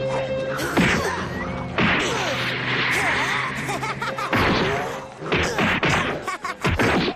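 Cartoon fight sound effects: sharp whack and smash impacts of kicks and blows landing, in a quick run from about four seconds in, with short cries between them. Background music plays under the first part.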